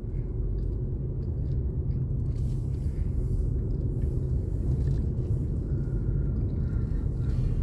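Steady low rumble of a vehicle driving, heard from inside its cabin: engine and tyre noise on the road.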